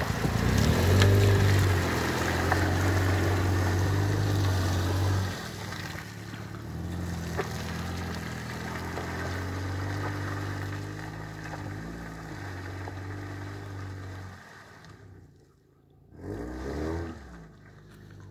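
Land Rover Freelander's engine running steadily under load as it drives through deep mud, loud for the first five seconds, then quieter and fading as it pulls away. A brief voice-like sound near the end.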